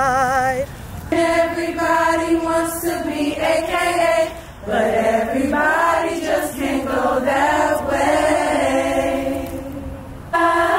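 A group of women singing a cappella, holding long slow notes in phrases. It opens with a single voice on a wavering note with strong vibrato before the whole group comes in.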